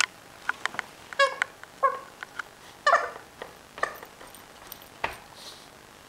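Corgi puppy playing with a rubber ball toy: about four short high-pitched squeals in the first four seconds, among scattered clicks and knocks of the toy against the bed and crate.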